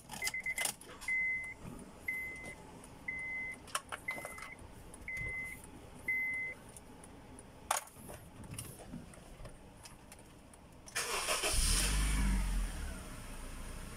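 Honda Civic's dashboard chime beeping about once a second, seven times, with a few sharp key clicks. About 11 seconds in the engine is cranked and starts, then settles into a steady idle.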